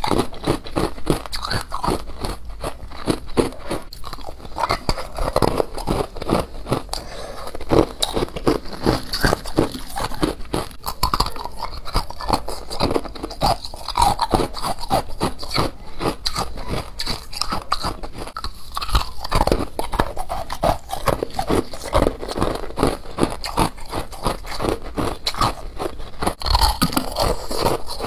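Biting and chewing dyed humidifier frost: dense, continuous crisp crunching with rapid, irregular crunches.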